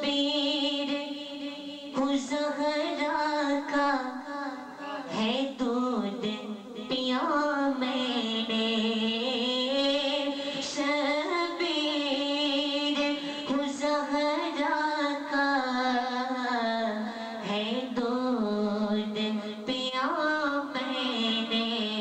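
A young man's solo voice singing Islamic devotional verse into a microphone, in long ornamented phrases whose held notes glide up and down, with short breaths between phrases.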